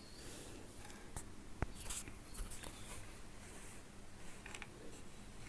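Faint scraping and a few light clicks of small parts and tools being handled during a circuit-board repair.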